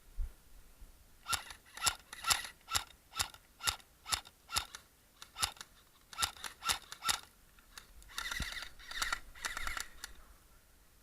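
Airsoft guns firing: a string of sharp single shots about two a second, then quicker rattling bursts near the end.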